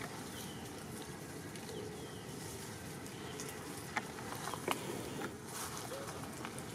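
Outdoor ambience: a steady hiss with faint short chirps, and two sharp clicks about four and four-and-a-half seconds in.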